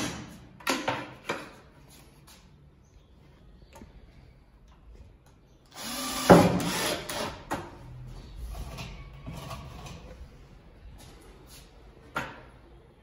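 Knocks and clatter of an MDF drawer box and its metal telescopic slide being handled and fitted. About six seconds in, a louder stretch as a cordless drill-driver drives a slide screw into the drawer side, then a sharp knock near the end.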